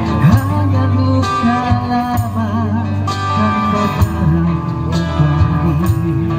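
Live acoustic music: two acoustic guitars strumming chords while a male singer sings a slow melody with a wavering vibrato, amplified through small PA speakers.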